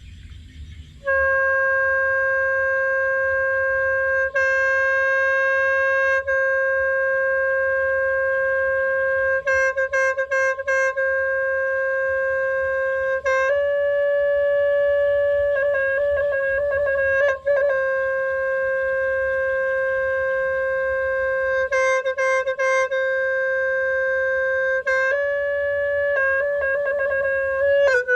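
Khmer sneng, a buffalo-horn free-reed horn, blowing one long held note that starts about a second in, broken by quick fluttering trills several times and stepping briefly up in pitch near the middle.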